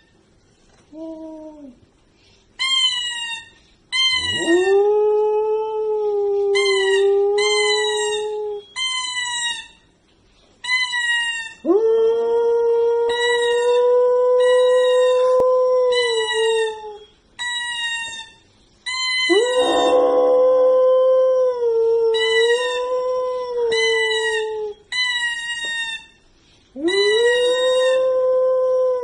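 A Samoyed howling in four long, drawn-out howls, each held for several seconds. Short, high-pitched calls repeat about once a second throughout, overlapping the howls.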